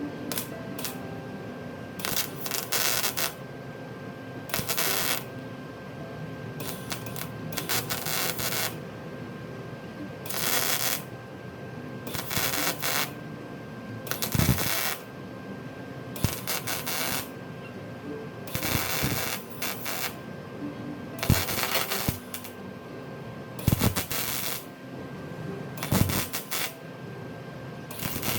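MIG welder laying a series of short spot welds, about a dozen brief bursts of arc, each around a second long, with gaps of one to three seconds between them.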